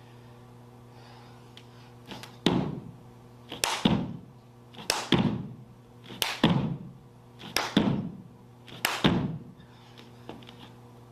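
Clapping push-ups on a hard floor: six repetitions about 1.3 seconds apart, starting about two seconds in, each a quick double smack of the hands clapping and the palms landing. A steady low electrical hum runs underneath.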